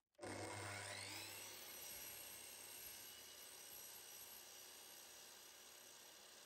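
Hitachi C10FSH 260 mm slide compound miter saw switched on: its motor whine rises in pitch as the blade spins up over about a second, then runs steadily at speed.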